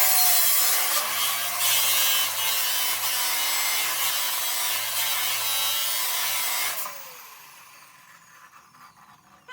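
Electric metal-cutting saw running through steel square tubing. The cut is steady, then about seven seconds in the motor cuts out and the blade winds down with a falling pitch.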